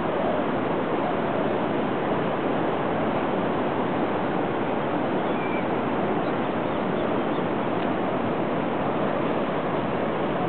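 Steady rushing noise of ocean surf on a sandy beach, constant in level.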